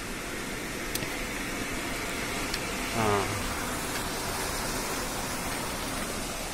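Steady rushing of a small stream mixed with the steady hum of a micro hydropower turbine running. A short vocal sound comes about three seconds in.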